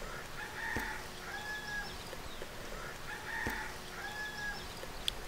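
A chicken calling twice, about two and a half seconds apart; each call is a short note followed by a longer drawn-out one.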